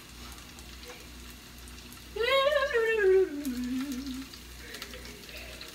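Sliced onions frying in a skillet, a faint steady sizzle. About two seconds in, a person hums a short phrase that falls in pitch over about two seconds.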